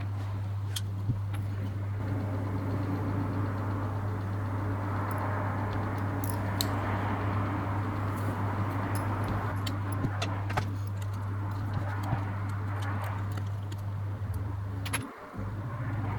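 Scattered small metallic clicks and taps of lens parts and tools being handled, over a steady low hum; the sound drops out briefly near the end.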